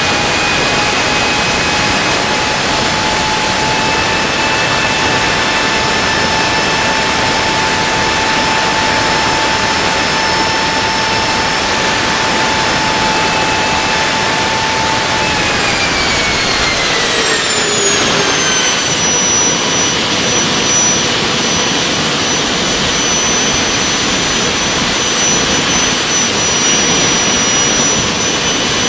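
Handmade kerosene-burning turbojet running on a test stand: a loud, steady roar with a high turbine whine. About halfway through, the whine glides down in pitch over a few seconds as the engine spools down a little, then holds steady at the lower speed.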